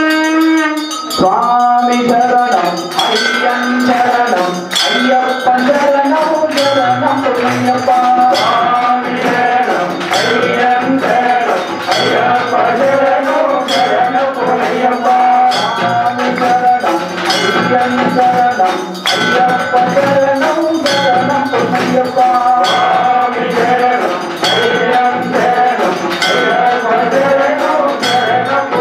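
Temple bells clanging continuously in quick repeated strikes, mixed with music. A long held note stops about a second in.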